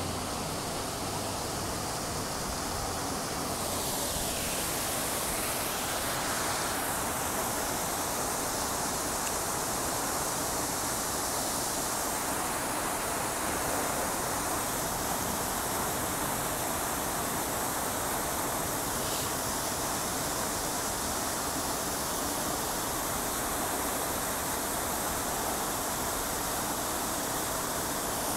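Lincoln Center's Revson Fountain, its rows of water jets splashing back into the basin: a steady rush of falling water.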